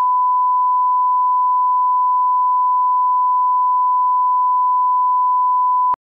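Steady 1 kHz reference tone, the line-up tone played with colour bars to set audio levels, holding one pitch and cutting off suddenly near the end.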